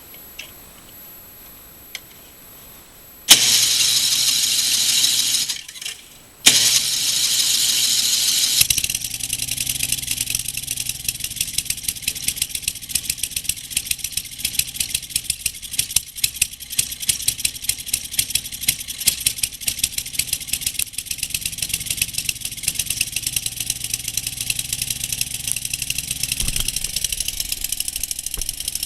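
Snowblower engine, fitted with a new carburetor, being cranked over twice for about two seconds each time, then catching and running steadily with fast, even firing pulses. The owner thinks it may still need some carburetor fine tuning.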